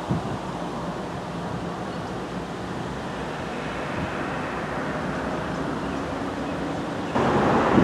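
Three GE diesel-electric locomotives (a C44-9W leading an ES44AC and an ET44AC) running light toward the listener, their engines giving a steady low rumble. Near the end the sound jumps suddenly louder with a rush of noise.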